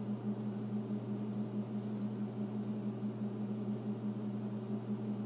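Steady low electrical hum with a faint hiss underneath, unchanging throughout; no other sound.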